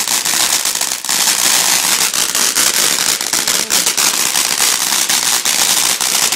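Crackling fountain firework: a steady loud hiss thick with rapid, dense crackles.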